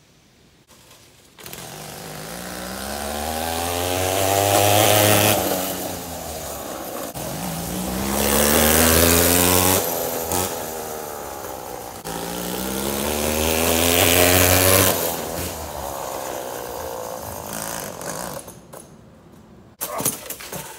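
Homelite 42cc two-stroke chainsaw engine driving a homemade scooter, its pitch and loudness climbing and falling back three times as it pulls the rider along. It fades out near the end.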